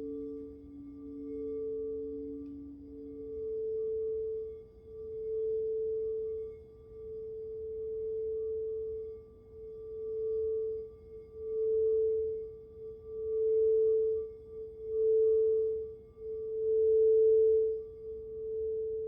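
Crystal singing bowl singing a steady, pure tone that swells and fades about every one and a half to two seconds and grows louder toward the end. A second, lower bowl tone rings underneath and dies away in the first few seconds.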